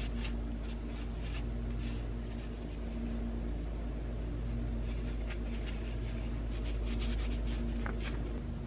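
A steady low hum with a few faint steady tones, and scattered faint clicks and taps of small parts being handled on the bench. The hum drops slightly near the end.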